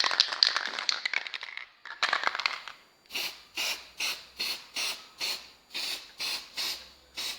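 A brush stroking clear wood varnish over a stone-covered plate: a few seconds of irregular rubbing, then short, even swishes about twice a second.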